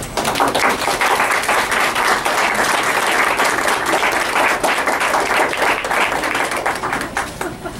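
Audience applauding: many hands clapping in a dense, steady patter that starts abruptly and thins out near the end.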